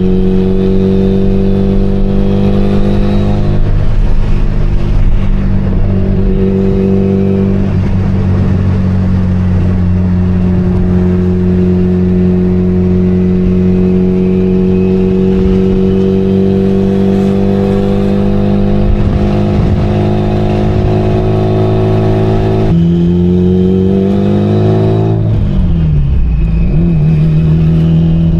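Mitsubishi Lancer Evolution IX's turbocharged 4G63 four-cylinder engine running while driving, its note holding steady. A few seconds before the end the pitch rises, then drops and settles lower.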